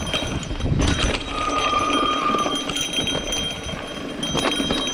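Mountain bike rattling and clattering as it rolls down a rocky dirt trail, with irregular knocks from the frame, chain and tyres over stones and a low rush of wind. A brief steady squeal rises out of the clatter about a second in.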